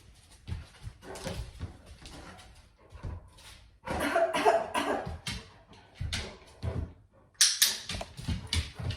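A person coughs a few times about four seconds in, as a deliberate distraction during a dog's scent search. Around the coughs there are short knocks and shuffles from the dog and handler moving, and a sharp hissy burst near the end.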